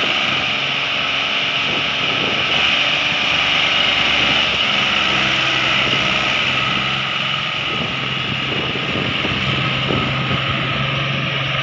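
Mahindra 265 DI tractor's three-cylinder diesel engine running steadily under load, hauling a trolley piled with sugarcane across soft, wet field soil.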